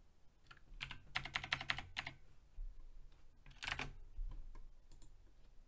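Typing on a computer keyboard: a quick run of keystrokes about a second in, another short burst of keys a little before four seconds, then a few scattered single clicks near the end.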